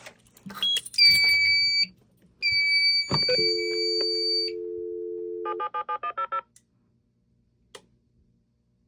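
Fire alarm panel's dialer seizing the shared phone line: a click, then a steady dial tone, then a rapid string of about eight touch-tone (DTMF) digits as it dials the central monitoring station. Before and over the start of the dial tone, two long high electronic beeps sound.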